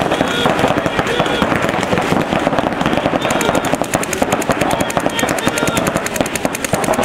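Several paintball markers firing, with scattered shots that turn into fast, steady strings of shots from about three seconds in.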